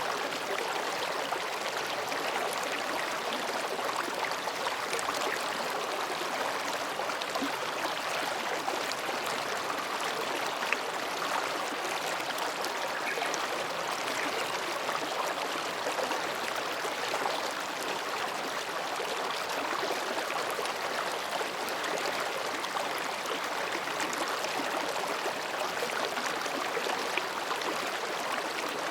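Mountain stream flowing between rocks, a steady babbling rush of water with small splashes.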